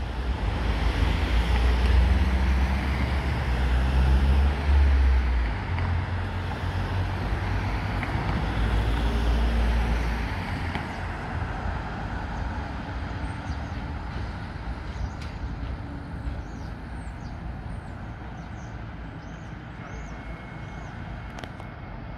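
A road vehicle with a heavy engine passes close by. Its deep engine note steps up and down and is loudest in the first few seconds, then fades after about ten seconds into a steady traffic hum.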